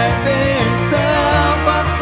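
A worship song played by a small band: a man and a woman singing over acoustic guitar, electric guitar, bass guitar and cajón, with the bass moving to a lower note about one and a half seconds in.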